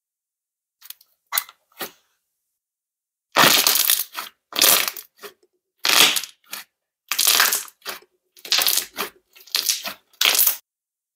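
Green puffy slime squeezed and pressed by hand, giving off crackling, popping clicks as air pockets burst. A few soft crackles come first, then about nine loud bursts of popping, each lasting under a second.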